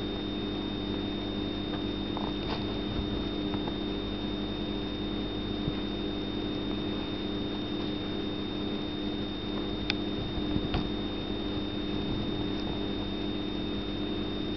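Steady electrical hum under a kitten licking its fur, with a few faint clicks about two and a half seconds in and twice around ten seconds in.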